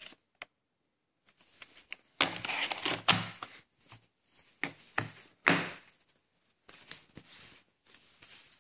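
A plastic VHS clamshell case being handled: a run of clicks, knocks and rustles as the case is shut over the tape and set down on the table. The loudest clacks come about two to three seconds in and again about five and a half seconds in.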